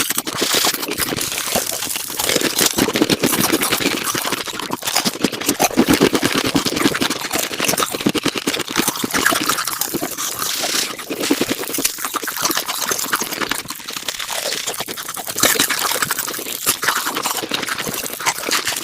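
Mukbang eating sounds sped up five times: chewing and mouth sounds run together into a fast, dense chatter of clicks and wet smacks.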